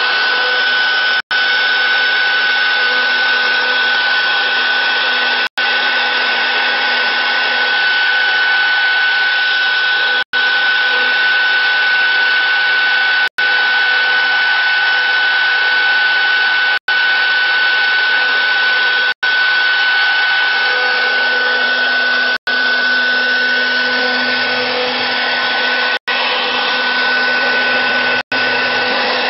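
CNC router spindle running steadily with a high, constant whine while its bit carves into a wooden block, the sound briefly cutting out several times.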